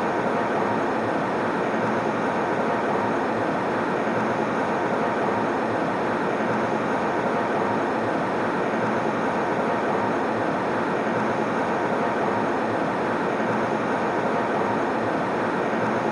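Airplane cabin noise in flight: a steady, even rushing hiss that does not change.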